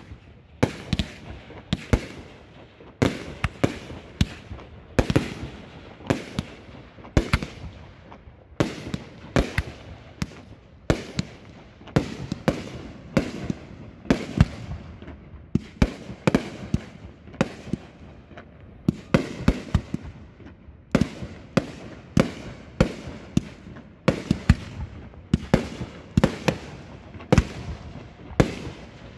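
Aerial fireworks shells firing and bursting in a steady barrage of sharp bangs, about two or three a second, with a few short lulls.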